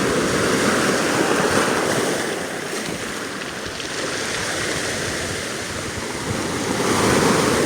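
Small sea waves breaking and washing up the shore, surging near the start, easing off, then surging again near the end as a wave runs up to the feet.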